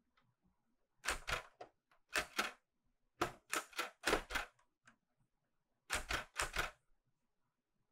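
Keys striking on a Clover 810S manual typewriter: about fifteen sharp typebar clacks in four short, uneven bursts with pauses between, the pace of slow, hesitant typing.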